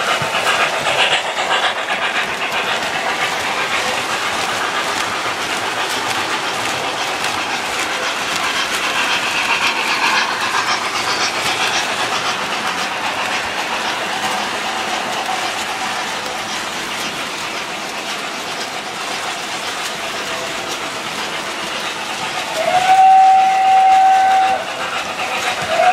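Model train running on the layout's track, its wheels clattering steadily and loudest as it passes close by. Near the end the locomotive's electronic sound system blows a steam whistle: one long steady blast, then a second starting just before the end.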